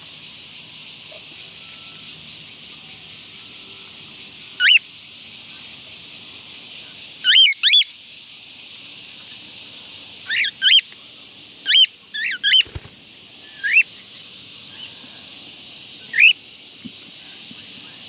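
Cockatiels giving short, loud chirping calls that sweep up and down in pitch, about ten of them scattered through the stretch, some in quick pairs. A steady high hiss runs beneath.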